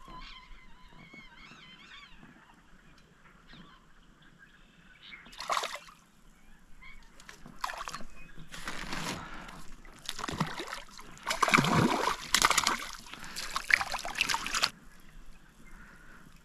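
Hooked trout splashing at the lake surface as it is played to the boat and netted: a single splash about a third of the way in, then a run of louder splashing through the second half that stops shortly before the end.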